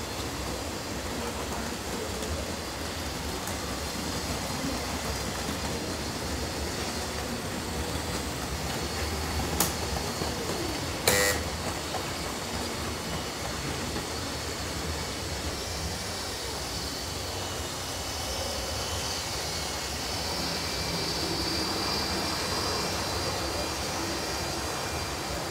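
Steady running noise of model trains on a large model railway layout, mixed with the hall's background hum. A sharp click comes about ten seconds in, and a brief loud pitched sound just after eleven seconds.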